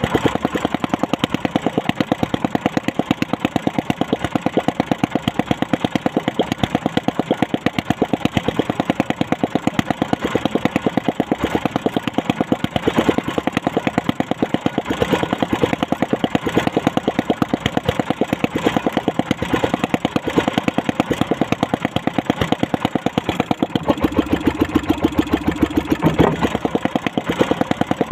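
Small boat engine running steadily at low speed, an even rapid beat with no change in pace.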